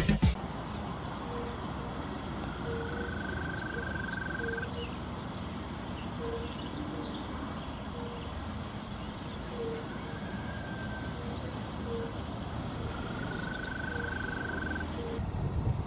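Wetland animal calls: short, low hooting notes repeating about once a second, and three longer, slightly rising high notes of about two seconds each, over a steady background hiss.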